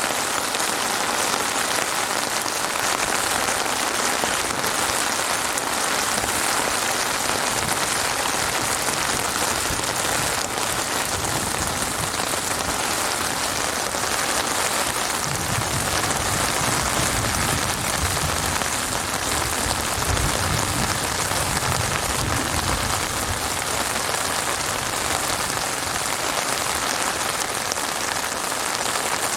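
Heavy rain falling steadily, a dense even hiss of drops on a surface, with a low rumble that swells and fades again about halfway through.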